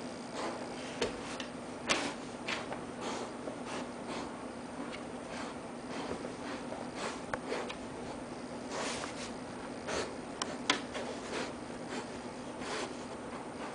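Irregular rustling and scuffing of blankets and newspaper as a boxer bitch moves over her bedding and noses at her newborn puppy in a whelping box, with a few sharper knocks. A steady low hum runs underneath.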